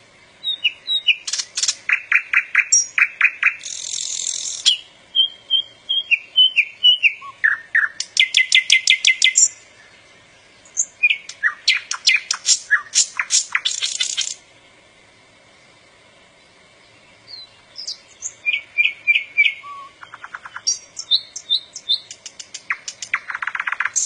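Nightingale singing: loud phrases of rapid repeated notes, whistles and trills, with a pause of about three seconds in the middle.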